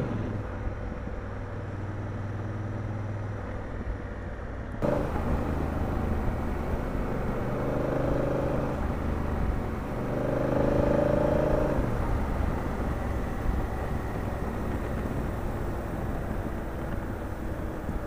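Motorcycle engine running at road speed with wind and road noise. The sound changes abruptly about five seconds in, and the engine note rises twice in the middle as the bike accelerates.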